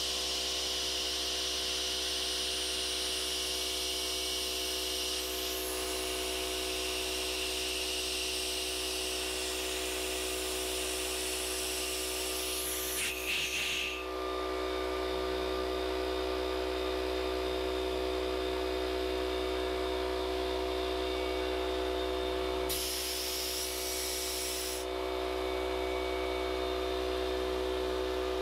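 Air compressor motor running with a steady hum while compressed air hisses into a fishing buoy for about twelve seconds, then stops with a couple of clicks. A second short hiss of air, about two seconds long, comes near the end.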